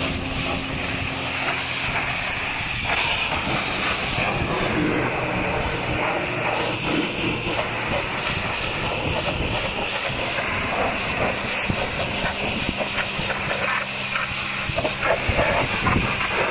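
High-pressure washer jet hissing steadily as it sprays water against a truck's cab and wheel.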